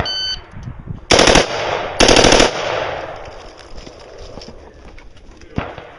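A shot-timer beep, then a semi-automatic carbine fired in two quick strings of rapid shots about a second apart, echoing, and one more shot near the end: the start of a timed practical-shooting stage.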